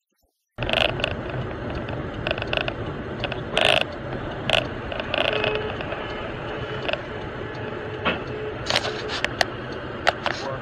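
Engine and road noise inside a moving car, picked up by a dashcam, with a low hum under it. Over the noise come many sharp clicks and knocks, the loudest a short burst about three and a half seconds in.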